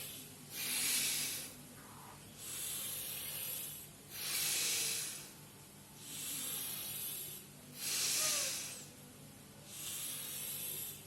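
Forceful nasal breathing through one nostril at a time during alternate-nostril pranayama: in through the right nostril and out through the left. The hissing in-breaths and out-breaths alternate, about a second each, seven in all, some louder than others.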